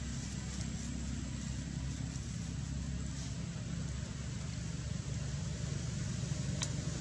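Steady low rumble with a hiss above it, with a single sharp click near the end.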